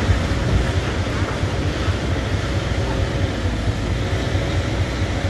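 Heavy diesel engines of dump trucks and a Caterpillar excavator running, a steady low rumble with a faint steady hum above it.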